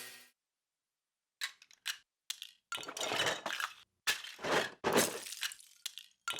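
Small hard objects clattering and clinking in a run of short, irregular bursts, starting about a second and a half in.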